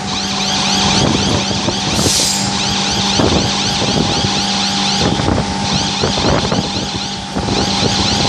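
Scrap metal clattering and knocking irregularly as it is fed by a furnace scrap charger, over a steady machine hum and a repeating high, rising whine. A short hiss about two seconds in.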